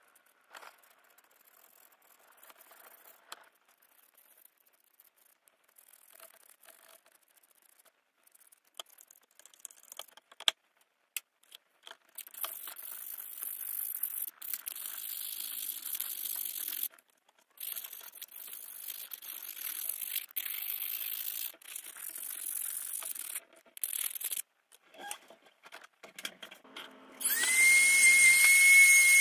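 Needle-nose pliers scrubbed in a liquid bath: faint handling clicks, then a long stretch of irregular scrubbing hiss broken by short pauses. Near the end a rotary tool with a thin disc spins up and settles into a loud, steady high whine.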